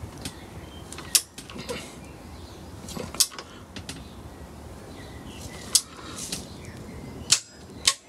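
Click-type torque wrench tightening a motorcycle's front brake caliper bolt to 31 newton metres: a handful of sharp metallic clicks a second or two apart, the last two close together near the end, the wrench clicking over as the set torque is reached.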